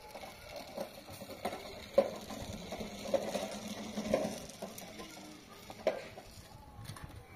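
Wood fire crackling under a metal pan as sticks are pushed into it: scattered clicks and small knocks, the sharpest about two seconds in.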